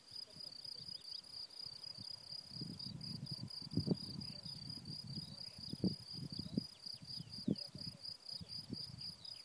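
Crickets chirping in a steady, evenly pulsing high trill, with irregular low rumbles and a few knocks on the microphone.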